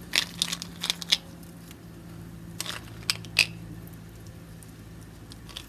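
Small sharp clicks and taps of caramel cubes being picked out of a bowl and set down on foil-wrapped ribs: a cluster of clicks in the first second, then three more a couple of seconds later.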